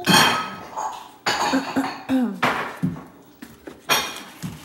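Plastic and glass containers clattering and knocking together as a child rummages through a cabinet shelf, several knocks about a second apart, with short vocal sounds from the child in between.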